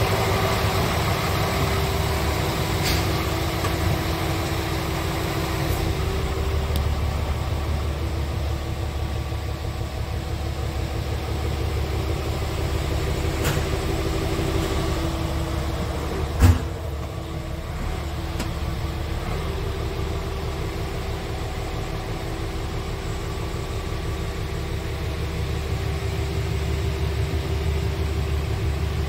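Scania R tractor unit's diesel engine idling steadily, with one sharp knock about halfway through.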